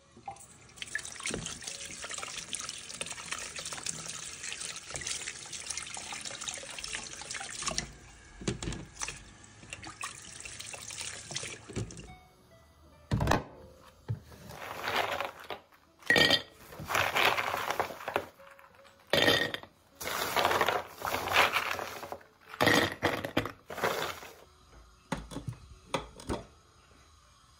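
Kitchen tap water running into the sink, steady for about the first twelve seconds, then coming in short spurts of splashing with a single knock, as fruit is rinsed in a plastic colander.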